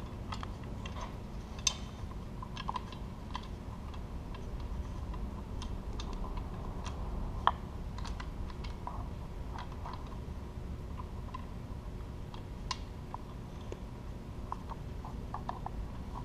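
Small irregular clicks and taps of metal parts being handled as a nut is threaded by hand onto the fairlead mount of a Warn ProVantage 2500 winch, with a couple of sharper clicks, over a steady low hum.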